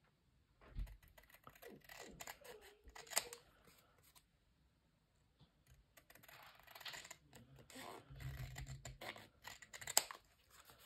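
Scissors snipping through card: a run of short cuts and clicks, with a sharper snip about three seconds in and another near the end, and a short pause in the middle.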